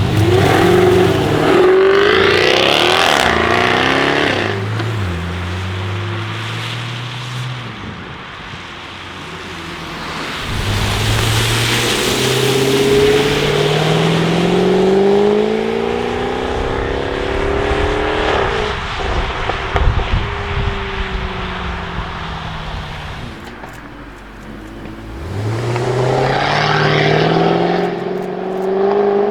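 Jaguar F-Type V8 R's supercharged 5.0-litre V8 accelerating hard several times, its engine pitch rising with each pull. There is a rev at the start, a long climbing pull from about a third of the way in with exhaust crackles about two-thirds through, and another acceleration building near the end.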